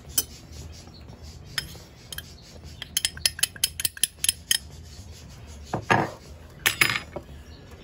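A quick run of light glass clinks as a small glass dish is tapped to shake paprika into a metal cooking pot, with a few single clinks before it and two short scuffing noises near the end.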